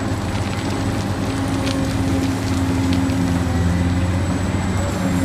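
A steady low motor hum with a few held tones, running evenly with no sharp events.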